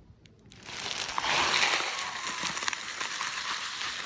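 A crackling hiss starts suddenly about half a second in, is loudest just after, then settles to a steady hiss with fine crackles.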